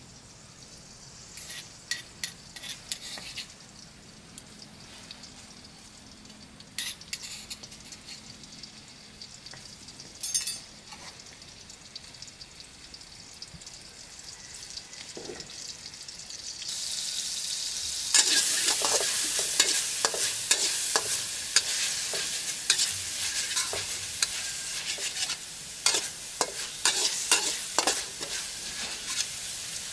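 Ground spice paste sautéing in hot oil in a pan. It starts quietly with scattered clicks and taps, then about halfway through a loud sizzle sets in and carries on under the clatter of a spatula stirring.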